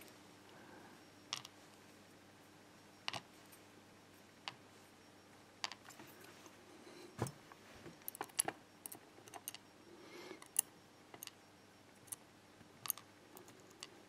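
Faint, scattered light clicks of tweezers and small brass and steel lock pins tapping on a plastic pin tray as the disassembled euro cylinder's pins are laid out, with a few quick clicks together around the middle and near the end.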